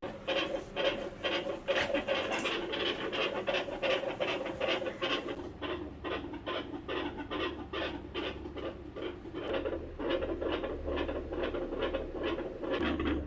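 Sounds from a dog's chest picked up by a stethoscope during a heart examination: fast, even rasping strokes, about three a second, with rubbing noise.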